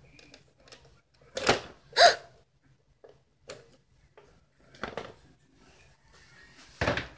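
Plastic toy figures and a plastic playset being handled, giving a few separate knocks and clatters; the loudest two come about a second and a half and two seconds in.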